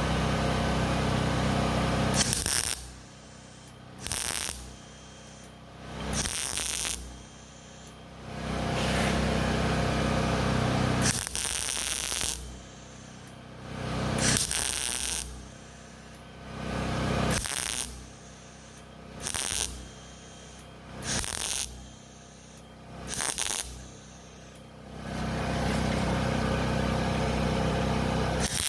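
Electric arc welding on steel exhaust pipe, struck in repeated bursts: short tack welds of under a second alternating with longer runs of two to three seconds, each a steady buzzing crackle that stops cleanly between welds.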